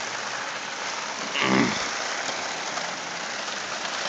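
Steady heavy rain hissing, with no thunder. About a second and a half in, a brief pitched sound, like a short hum, stands out over the rain for about half a second.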